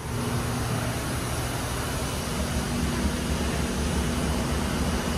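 Steady rushing noise with a low hum from a parked airliner and the gate's air-handling equipment, heard from inside a jet bridge.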